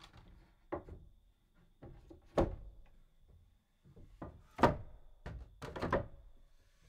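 Heavy wooden thuds and knocks of logs being set down into a log wall, a series of separate impacts, the loudest a little before halfway and about two-thirds through, with a quick double knock near the end.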